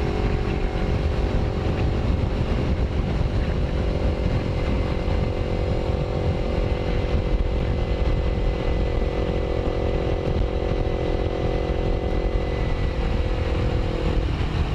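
Kawasaki Ninja 250R parallel-twin engine running at a steady cruise, heard from on the bike, with heavy wind rumble on the microphone. Near the end the engine note breaks off briefly and comes back.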